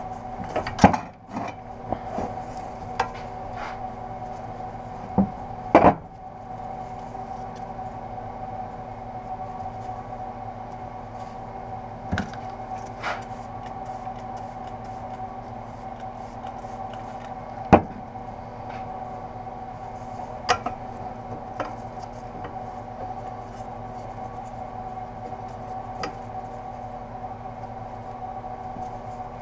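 Handling of a steel motorcycle exhaust header pipe while it is wrapped in exhaust wrap: scattered sharp knocks and clicks as the pipe shifts against the wooden workbench, with the rubbing of the wrap being pulled around it. A steady hum runs underneath, and the loudest knocks come about 6 and 18 seconds in.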